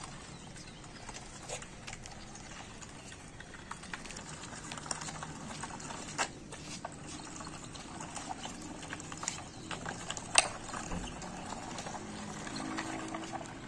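Wooden toy tractor and brick-loaded wooden trolley pushed along rough concrete, the wooden wheels rolling with an uneven clatter of clicks and knocks. One sharp knock stands out about ten seconds in.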